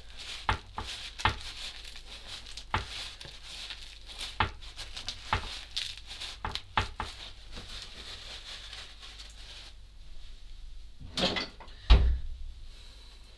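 Paper towel rustling and crinkling under hands pressing down on a large bread-topped burger, with many small clicks. The rustling stops about ten seconds in, followed by two knocks, the second a loud thump.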